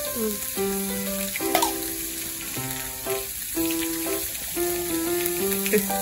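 Sliced meat sizzling steadily on a ridged grill plate over a tabletop gas burner. Background music with a slow melody of held notes plays over it.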